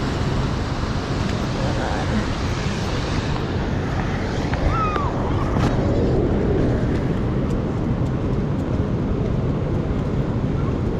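Heavy rain pouring down, a steady dense hiss, mixed with city traffic.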